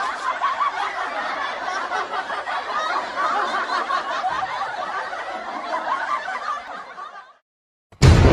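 Laughter played as a meme sound clip, dying away about seven seconds in. Loud music cuts in abruptly just before the end.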